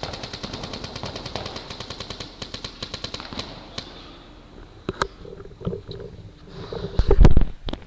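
GI Victus paintball marker firing Reball rounds in a fast, even string of shots for about three and a half seconds, then a couple of single shots or clicks. A loud low thump comes near the end.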